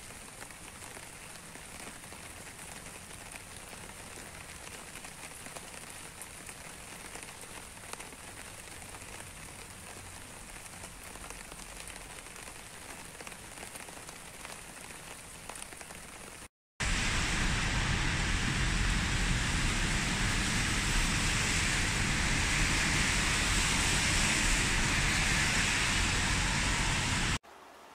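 Quiet, steady rain dripping onto broad leaves, with scattered taps of single drops. About two-thirds of the way through it cuts to much louder, denser rain on a wet street, with a low rumble underneath.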